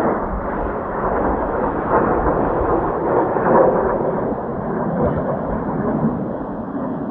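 Jet roar from Blue Impulse's Kawasaki T-4 jet trainers flying over, a rough continuous rumble that swells and eases, with wind gusting on the microphone.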